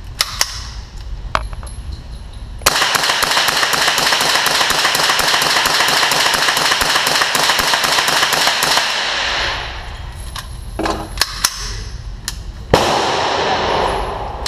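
Ruger 10/22 .22 LR semi-automatic rifle fired as fast as the trigger allows, emptying a 25-round magazine: a steady, rapid string of sharp cracks lasting about six seconds, echoing in an indoor range lane, the echo dying away after the last shot.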